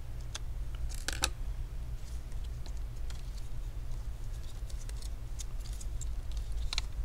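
Small clicks and scrapes of gloved hands handling a laptop's plastic cooling fan and the tape strip over it as the fan is worked loose and lifted out. There is a cluster of clicks about a second in and a few lighter ticks near the end, over a steady low hum.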